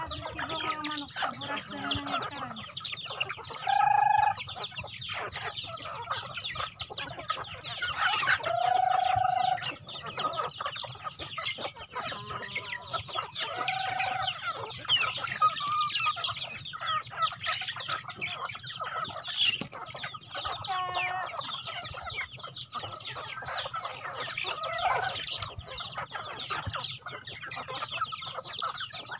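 A large flock of free-range chickens and roosters clucking busily while being fed. Several longer, drawn-out calls rise above the clucking, the loudest about four seconds in and again around nine seconds.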